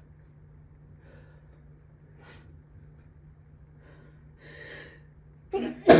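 Allergy sneezing fit: faint sniffs and breaths, a longer inhale, then loud gasping build-up breaths near the end that break into a sudden sneeze.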